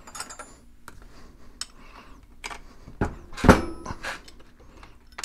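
Metal tools and parts clinking and knocking as a combination wrench is picked up and fitted to the bolts of a pressure washer pump. Several separate clinks, the loudest two about three and three and a half seconds in.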